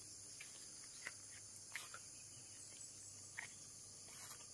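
Faint, steady high insect chorus, like crickets, with a few soft rustles or clicks, about three of them.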